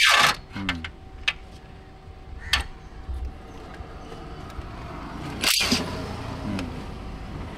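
Two short, loud hissing bursts of compressed air from a pneumatic workshop tool, one at the start and one about five and a half seconds in, with scattered sharp tool clicks and knocks in between.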